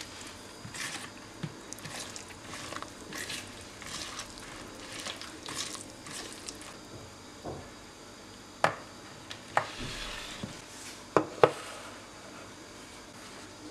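Silicone whisk stirring grated carrots through a wet, oily mixture in a plastic bowl, with wet squishing and scraping. In the second half there are four sharp knocks, the last two close together.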